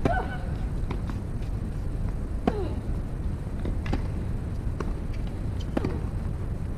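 A tennis rally on a hard court: sharp racket-on-ball strikes and ball bounces, beginning with the serve. Three of the shots, at the serve, about two and a half seconds in and near the end, come with a player's short falling grunt. A steady low outdoor background noise runs under it all.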